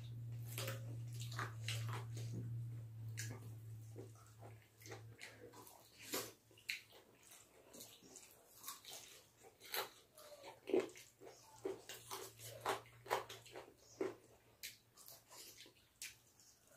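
Close-miked eating sounds: wet chewing, lip smacking and biting as chicken meat is eaten off the bone, with fingers squishing curry-soaked rice, as irregular short smacks and clicks. A low steady hum sits under the first few seconds, then fades.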